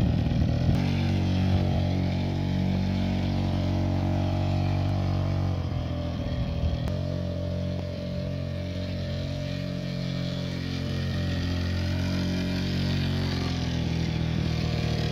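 Small engine of a child's mini motorbike running steadily at low speed as it is ridden, its pitch dropping a little around the middle and picking up again toward the end.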